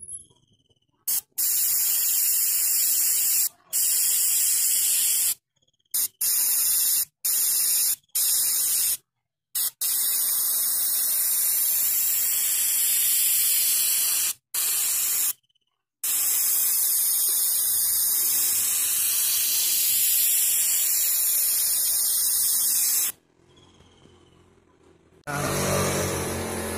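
Gravity-feed airbrush spraying gold paint in a series of hissing runs, a few short ones and several lasting a few seconds, each starting and stopping abruptly. A steady hum begins near the end.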